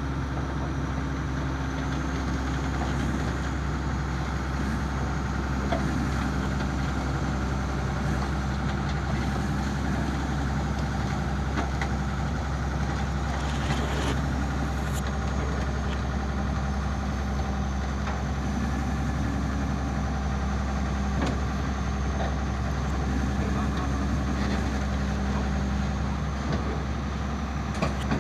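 Hitachi hydraulic excavator's diesel engine running steadily as the boom and bucket work, with a few faint knocks around the middle.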